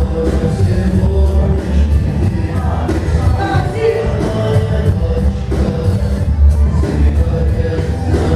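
Loud dance music with a heavy bass line and a singing voice.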